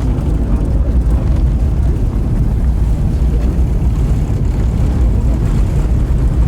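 Aircraft noise: a steady, loud low rumble with no separate events.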